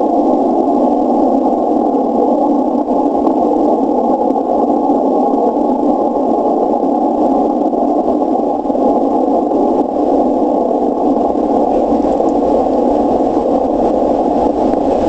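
Steady hiss of 160-metre band noise from an HF transceiver's receiver audio, squeezed into a narrow band of rushing static by its CW filter. This is the noise picked up by a Waller flag receive antenna while it is switched from vertical to horizontal polarization.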